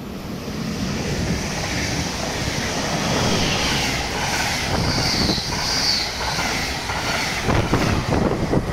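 An RE 30 double-deck regional push-pull train runs through the station at speed. Its rolling noise builds quickly as it comes in and stays loud while the coaches pass, with a high hiss strongest in the middle. The noise turns choppy near the end as the cab car goes by.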